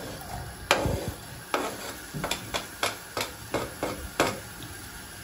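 Wooden spatula scraping and tapping diced onion off a plastic cutting board into a frying pan: about a dozen short, sharp knocks and scrapes at an uneven pace.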